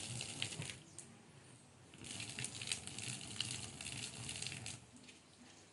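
Water poured out of a pressure cooker splashing onto the ground in two pours: a short one at the start, then a longer one from about two seconds in that stops near the end.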